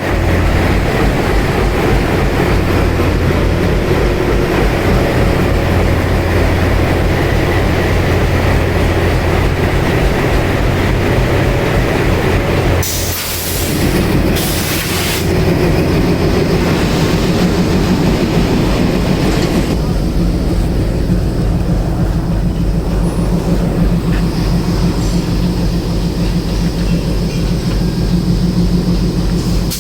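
Indian Railways train running with a loud, steady rumble. Two brief rushing noises come about 13 and 15 seconds in, and the sound turns duller about 20 seconds in.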